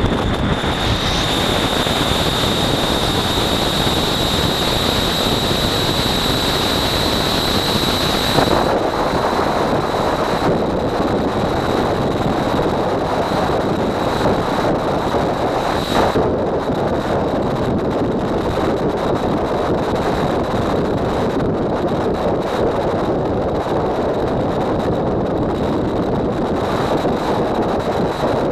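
Freefall airflow roaring over a helmet-mounted camera's microphone in a steady rush of wind noise. A thin, steady high whistle sounds over it and drops to a fainter level about eight seconds in; there is a brief knock about sixteen seconds in.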